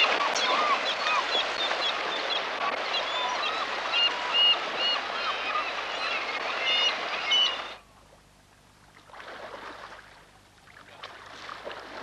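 Gulls calling again and again over a rushing river. About eight seconds in the sound cuts off suddenly to much quieter river water with a few soft swells of splashing.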